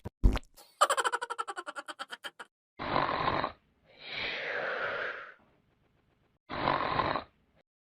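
A string of short comedy sound effects: a brief thump, a rapid stuttering pitched rattle of about ten pulses a second, then three separate noisy blasts, the middle one longest.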